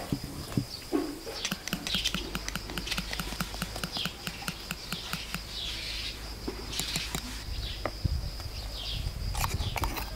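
A spoon beating a creamy mixture in an enamel pot, clicking rapidly and evenly against the sides for several seconds. Birds chirp throughout.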